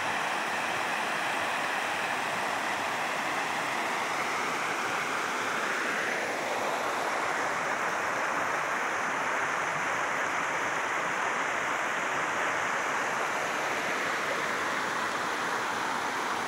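Muddy floodwater rushing over rock ledges in a stream running in spate after heavy rain: a steady rushing noise that cuts off suddenly at the end.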